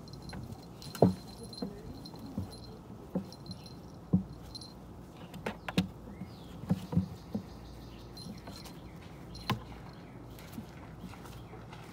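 A puppy and a kitten scuffling and rustling in grass and dirt as they play under a plastic wheelbarrow, with irregular sharp knocks and taps as they bump about; the loudest knock comes about a second in.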